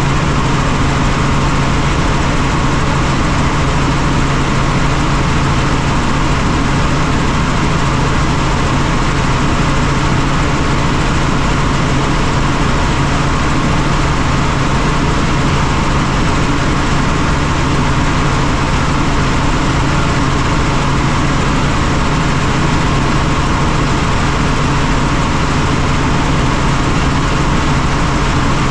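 Helicopter in flight: steady, loud engine and rotor noise with a constant low hum, unchanging throughout.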